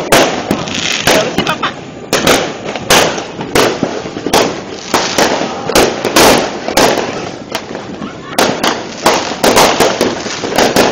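Fireworks going off: sharp bangs and crackling bursts in quick, irregular succession, several a second, with a short lull a little past the middle.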